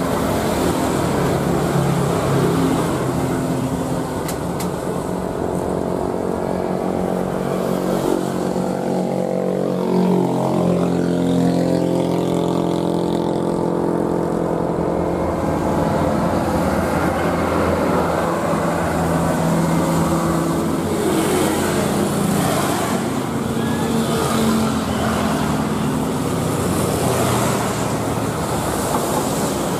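Boeing 737-800's CFM56-7B turbofan engines at takeoff power: a steady jet engine noise with whining tones that shift in pitch about ten seconds in as the aircraft passes and climbs away.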